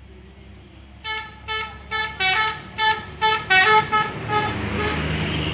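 Bus 'telolet' musical multi-tone horn playing a quick tune of about ten short notes at changing pitches. The later notes fade as the bus's engine noise swells and it passes close by.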